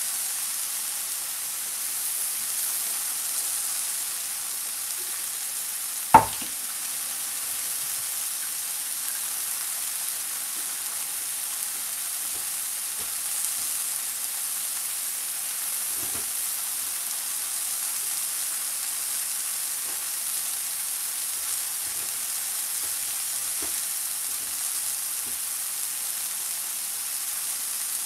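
Sliced mushrooms sizzling steadily in oil in two nonstick pans over medium-low heat. There are a few faint small pops, and one sharp knock about six seconds in is the loudest sound.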